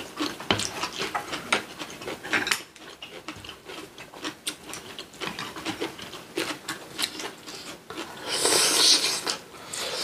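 Close-up eating sounds: chewing, with utensils clicking against dishes many times. Near the end comes a louder rushing noise that lasts about a second.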